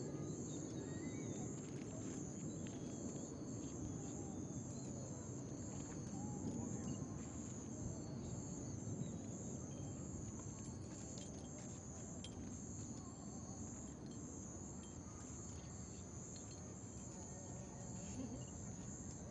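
Night insects trilling steadily in a high, finely pulsing band, over a low background murmur.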